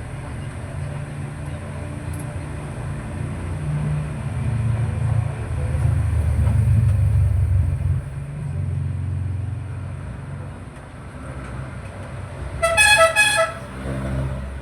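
Low vehicle engine rumble that swells and fades. Near the end, a vehicle horn sounds a quick run of short beeps.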